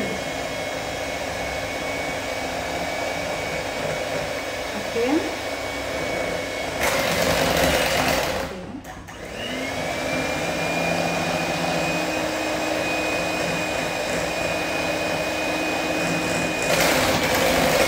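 Electric hand mixer running steadily with a steady whine, its beaters whisking butter and condensed milk in a glass bowl. The chilled butter lumps have broken down into a smooth mix, which changes the sound of the mixer. About nine seconds in the motor briefly cuts out, then spins back up.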